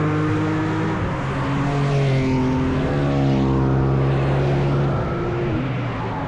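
Race cars passing at speed on the circuit, several engine notes overlapping and shifting in pitch; one note drops about five and a half seconds in.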